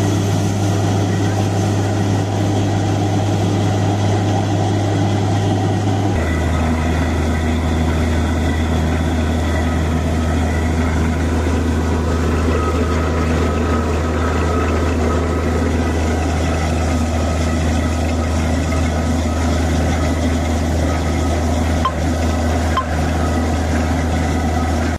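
Borewell drilling rig running under load as it drills, a loud, steady low engine drone with slurry blowing out at the wellhead. About six seconds in, the drone steps down to a lower pitch and holds there.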